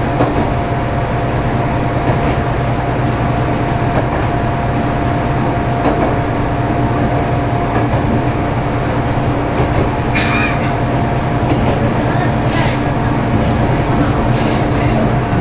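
Diesel railcar (Mizushima Rinkai Railway MRT300 series) running steadily along the track, its engine drone mixed with wheel-on-rail noise. A few faint clicks come from the wheels, and there are short high-pitched squeals or rings in the last few seconds.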